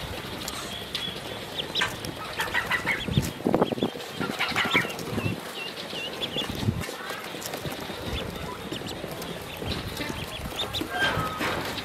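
A brood of ducklings peeping with many short, high chirps, heaviest about four to six seconds in and again near the end, while they shuffle and scuff about in a shallow plastic tray of sand.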